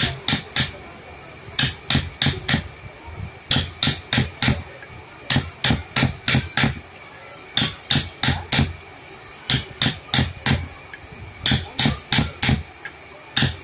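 Hammer blows in woodworking, struck in quick groups of four to six with short pauses between the groups.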